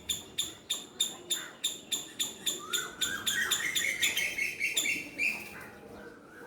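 Squirrel giving a rapid run of short alarm barks, about three a second, stopping about five seconds in. A bird sings a warbling call over the barks for about two seconds near the middle.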